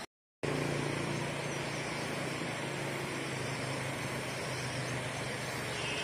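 Steady rushing hiss of a shallow river running over rocks, cutting in just after a brief silence, with a low steady hum underneath.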